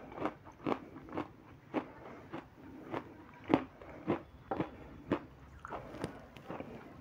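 Close-up mouth sounds of a person eating soft white cream off a spoon: short smacking clicks from the lips and mouth, about two a second.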